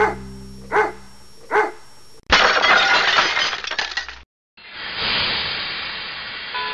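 Logo-sting sound effects: a dog barking three times, evenly spaced, then a loud crash of shattering glass that lasts about two seconds and cuts off suddenly, and after a brief gap a swelling whoosh.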